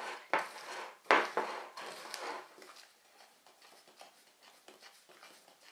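Flexible spatula scraping and folding thick macaron batter in a bowl, mixing in cocoa powder: a few sharp scrapes in the first two seconds, then fainter rubbing strokes.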